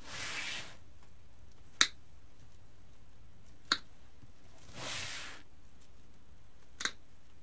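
Wire cutters snipping through the wire cores of pipe cleaners: three sharp snips about two seconds apart. Two soft rustles of handling fall between them, one near the start and one about five seconds in.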